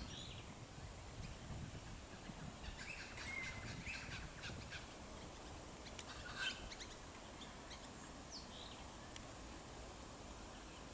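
Faint bird calls: short, scattered high chirps and brief whistled notes over a low background hiss. The loudest comes about six and a half seconds in.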